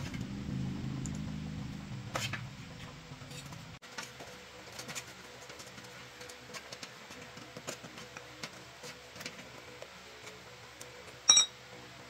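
Bicycle tyre and inner tube being pulled off a wheel rim by hand: scattered small rubbing and clicking of rubber against the metal rim, with one sharp ringing metallic click near the end. A low rumble fills the first few seconds and cuts off suddenly.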